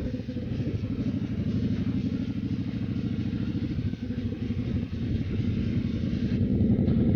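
Motorcycle engine running at a steady cruise with a fast pulsing beat, heard from the rider's own bike, getting a little louder near the end.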